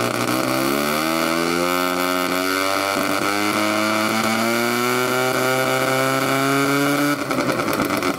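Exhaust note of an early-model Mazda Cosmo Sport's 10A twin-rotor rotary engine running at raised revs, its pitch creeping slowly upward. About seven seconds in, the steady note breaks off and turns rough and uneven.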